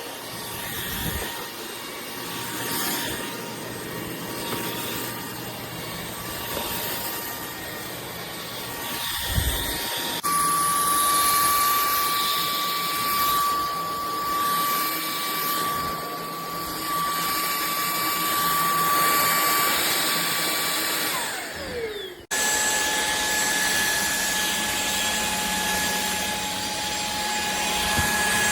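Cordless stick vacuum running: a steady motor whine over a rushing suction hiss. The whine jumps up in pitch about a third of the way in. About three-quarters of the way through it slides down, then cuts abruptly back to the motor running at a lower pitch.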